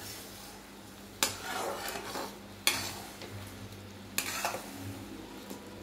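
A spatula stirring jaggery syrup as it boils in a kadai: three scraping strokes about a second and a half apart over the faint sizzle of the bubbling syrup, at the stage where the jaggery has melted and is being cooked down to syrup.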